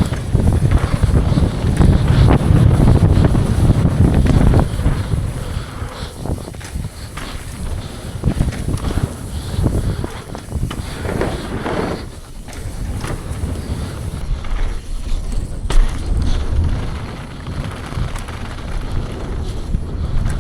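Wind buffeting the camera microphone and a downhill mountain bike rattling over rough dirt trail at speed. The rush is heaviest for the first few seconds, then breaks up into uneven knocks and rattles, with one sharp knock near the end.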